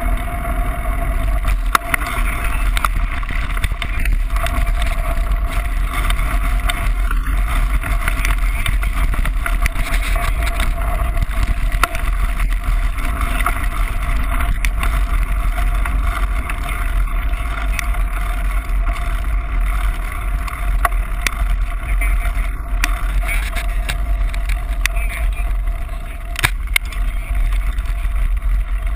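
Wind buffeting the microphone of a bike-mounted camera, over the rumble of a mountain bike's knobby tyres rolling on a paved lane, with scattered small clicks and rattles from the bike.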